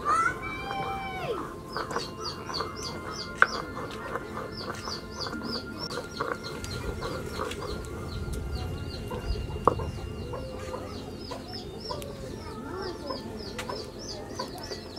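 Chickens calling and clucking, opening with a loud drawn-out call that rises and falls over about a second and a half, followed by shorter clucks in the second half. A bird's rapid, high chirping repeats throughout, and two sharp knocks stand out, one about three seconds in and one near ten seconds.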